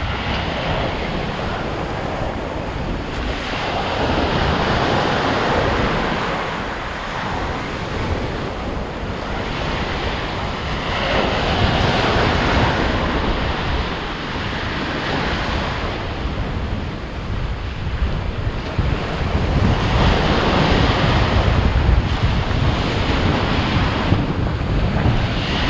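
Surf breaking and washing up a sandy beach, swelling and ebbing every few seconds, with wind buffeting the microphone.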